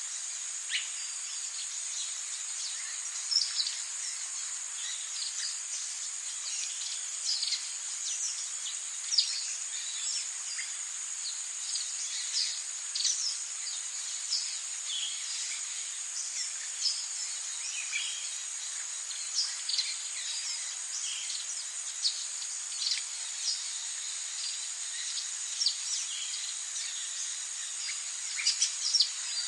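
Forest ambience: a steady high-pitched drone of insects, with many short bird chirps and calls scattered throughout.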